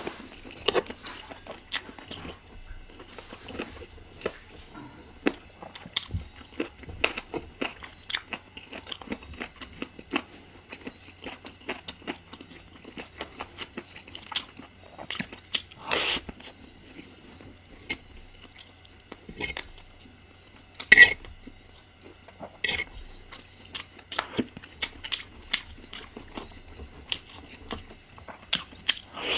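Close-miked eating: chewing and biting into spicy chicken curry, a steady run of short wet clicks and crunches, with a louder crunch about 16 seconds in and a sharper, louder one about 21 seconds in.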